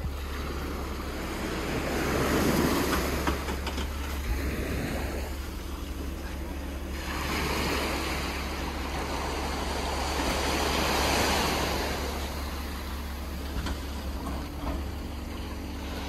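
Small Black Sea waves breaking and washing up on a sandy beach, the surf swelling about three times, with a steady low wind rumble on the microphone.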